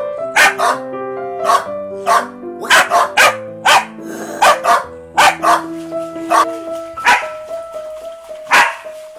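Corgi barking repeatedly, sharp barks about twice a second, over background music of held melodic notes.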